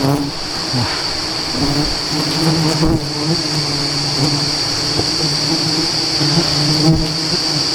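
Wild honeybees humming in a low, wavering drone, over a steady high-pitched insect whine.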